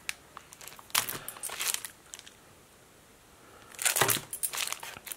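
Clear plastic sleeves of planner sticker kits crinkling as they are handled, in two bursts: about a second in and again near the end, with a quiet pause between.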